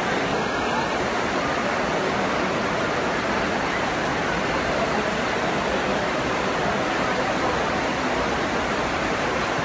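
Steady, even rush of heavy storm rain and falling water.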